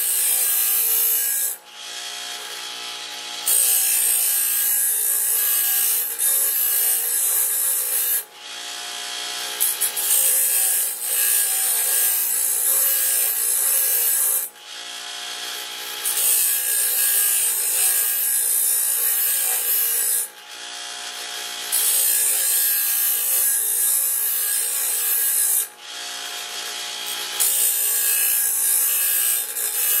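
Bauer 6-inch bench grinder wheel grinding the teeth of a steel sawmill band blade to sharpen them: a loud hissing scrape lasting four to five seconds at a time, six times, with short pauses of a second or two where only the grinder's motor hum is heard.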